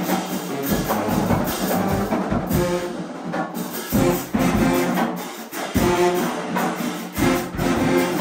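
HBCU-style marching band brass (trombones, sousaphones and mellophones) playing loudly together in a band room, with percussion hits punctuating the phrases.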